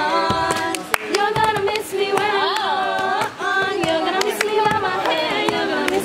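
Several young women singing a tune together while clapping and slapping their hands in rhythm, with sharp claps cutting through the singing.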